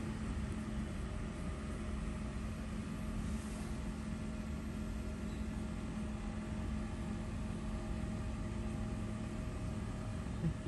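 A steady low mechanical hum at a constant pitch, with one short soft bump near the end.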